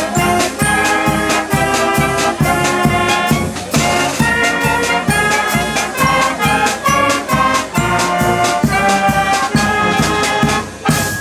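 Concert band playing: saxophones, flutes and brass over a drum kit keeping a steady beat. The music stops near the end.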